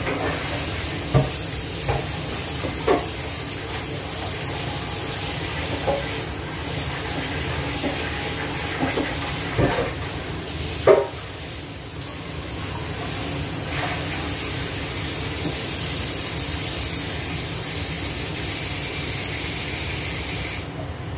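Steady hiss of food steaming and sizzling in a covered frying pan over a gas flame, with a few light knocks and clinks in the first half. The high part of the hiss falls away near the end.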